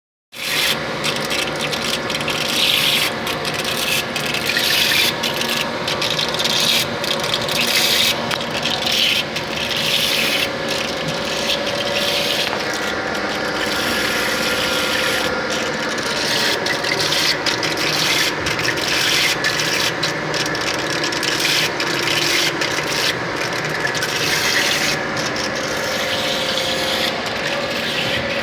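Rebuilt Charmilles sinker EDM machine running: a continuous scratchy, crackling rasp over a few steady hum tones.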